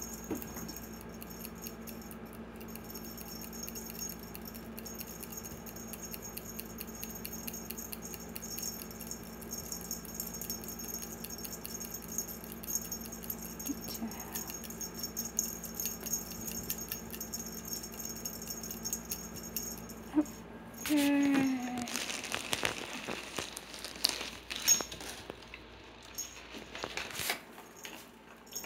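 A cat playing in a play tunnel with a wand toy: faint rustles and ticks at first. About two-thirds of the way in comes a short voiced sound, followed by several seconds of crinkling and rattling.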